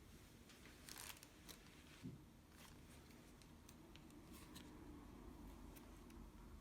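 Faint handling noises: scattered small clicks and light rustling over a low room hum.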